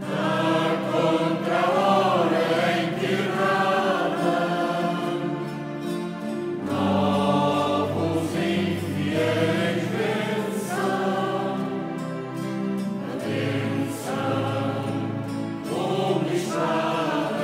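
Mixed choir singing a Portuguese song in parts, over an electronic keyboard holding steady low notes. The sung phrases break off and start afresh about every three to six seconds.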